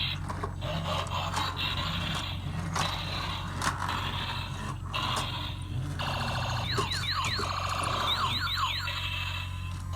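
Toy sounds: scattered clicking and rattling over a steady low hum, then a run of rapid rising and falling electronic chirps, like a toy's siren or alarm sound effect, from about six and a half seconds in.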